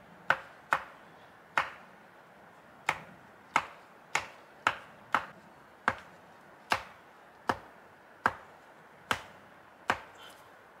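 A wooden pole being jabbed down again and again into stony soil to set it firmly upright: a series of sharp knocks, about fourteen, spaced unevenly around one every half second to second.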